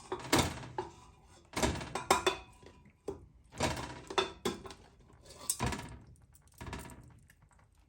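Pieces of oxtail going into a metal pressure cooker one after another, a series of short thunks and clinks at uneven spacing, about one a second.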